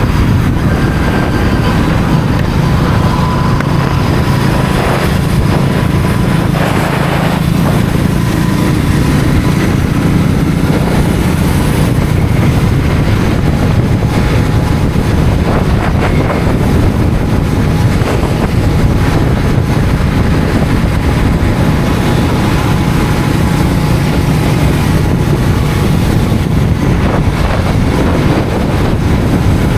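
Royal Enfield Continental GT 650's parallel-twin engine running steadily at road speed, under heavy wind rush on a helmet-mounted microphone.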